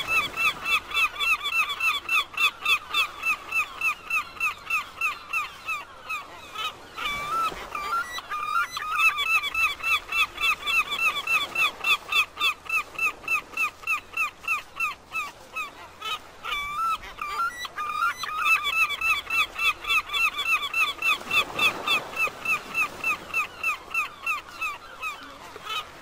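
Gulls calling: long runs of short, repeated cries, about five a second, breaking off briefly a few times.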